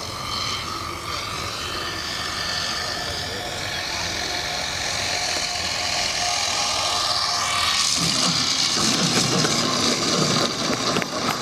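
Small model turboprop turbine on a Big Stick RC plane running: a steady high whine mixed with propeller noise, growing louder as the plane comes in low. About eight seconds in the sound turns abruptly louder and rougher as the plane rolls along the runway.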